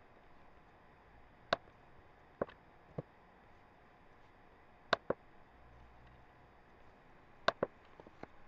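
Computer mouse and keyboard clicks: a few single clicks, then two quick double-clicks about five and seven and a half seconds in, over a faint steady hiss.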